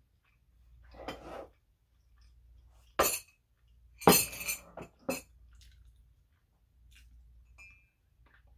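A mug with a metal straw clinking as it is picked up and handled: a sharp clink about three seconds in, then a longer rattle just after four seconds and another clink about a second later.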